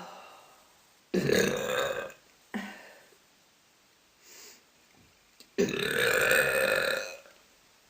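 A woman burping loudly several times: a long burp about a second in, a short one just after, a faint little one, then the longest burp, about a second and a half, past the halfway point.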